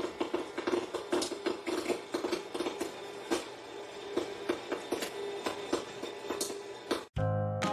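Rapid, irregular mechanical clicking and rattling over a steady hum; it cuts off about seven seconds in and music starts.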